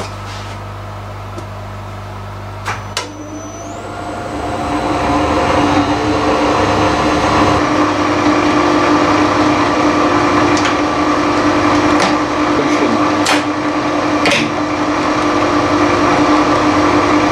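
Freshly overhauled Harrison 190 centre lathe starting up. A steady hum is followed by a click about three seconds in, then rising tones as the headstock gears and spindle run up over a few seconds to a steady running whine. Several sharp clicks come later.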